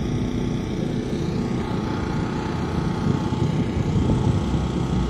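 A car audio system's subwoofers playing bass through the closed car, a steady low droning rumble that gets deeper and stronger near the end.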